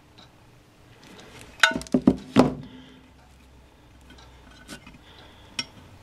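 Hand wire strippers working on 14-gauge cord wire: a quick cluster of sharp metallic clicks and clinks about two seconds in, with a brief ring, then a couple of lighter clicks near the end.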